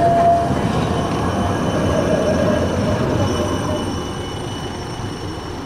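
Siemens Avanto tram-train running past on a curved track, its wheels squealing with a steady high tone that stops about half a second in, with a short weaker squeal around two seconds. The rolling rumble then fades as the tram moves away.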